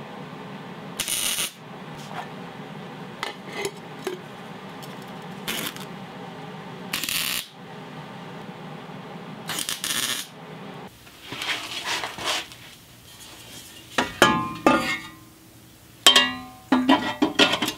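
MIG welder laying short tack welds on steel exhaust tubing: four brief crackling bursts of about half a second each over the first ten seconds. After that, metal exhaust pipes clank and ring as they are handled and fitted.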